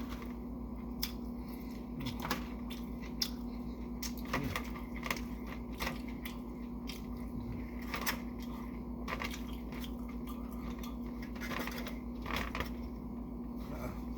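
Close-up chewing and eating sushi: irregular wet mouth clicks and smacks, scattered through, over a steady low hum.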